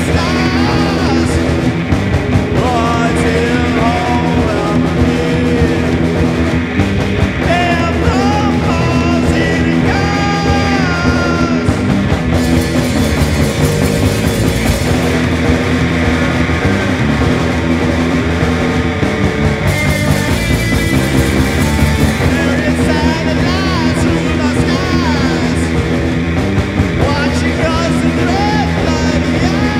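A stoner-rock trio playing live and loud: electric guitar, bass guitar and drum kit in a steady, driving, heavy psych rock song.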